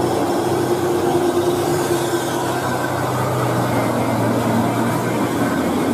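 Heavy fuel tanker truck's diesel engine running steadily at low speed as the truck takes a tight bend, over a steady hiss of tyres on a wet road.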